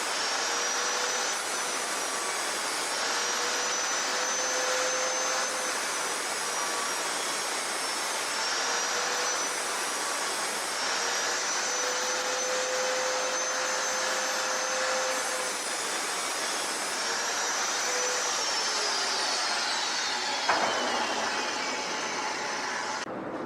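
A 4.5-inch angle grinder cutting through welded steel: a steady high whine over a grinding hiss, its pitch dipping and recovering as it bites. Near the end it is released and spins down, the whine falling in pitch.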